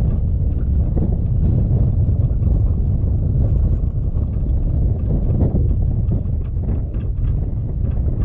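Steady low rumble of wind buffeting the microphone and of the vehicle running on a gravel dirt road.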